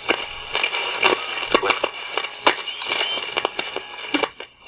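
Radio being tuned between stations: a steady static hiss broken by frequent crackles and pops, with faint short whistling glides. The static dips briefly near the end.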